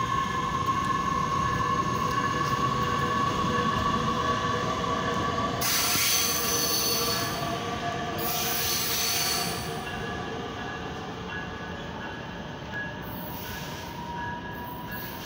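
Metra Electric bilevel electric multiple-unit train pulling out and running away down the track, with a steady whine over rumbling wheel noise and two bursts of hiss about six and eight seconds in. It fades as the train recedes near the end.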